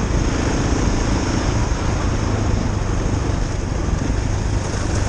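KTM 690 Enduro R's single-cylinder engine running steadily as the bike is ridden, under a constant rush of wind over the microphone.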